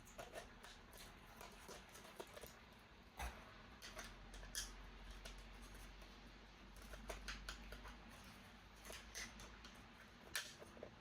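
Faint, irregular clicks and light rustling of a plastic toy and its packaging being handled, with a sharper click near the end.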